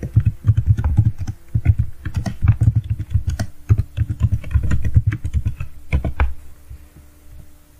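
Typing on a computer keyboard: a quick, uneven run of key clicks that stops about six seconds in.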